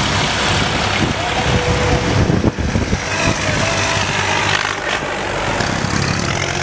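Old tractor engines running with a steady low drone as tractors drive past one after another, the nearest a yellow vintage tractor approaching at road speed.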